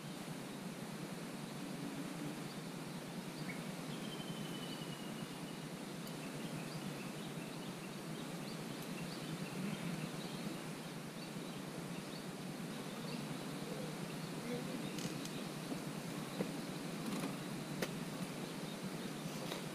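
Outdoor ambience: a steady background hiss, with a brief bird call about four seconds in and a few faint clicks near the end.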